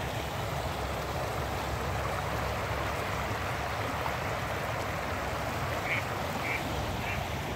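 Rain-swollen stream rushing over a shallow rocky riffle: a steady wash of moving water. Near the end, a string of short, faint calls repeats about every half second.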